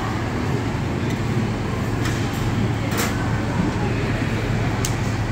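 Restaurant dining-room ambience: a steady low hum over a constant background haze, with two short sharp clicks, about three seconds in and near the end.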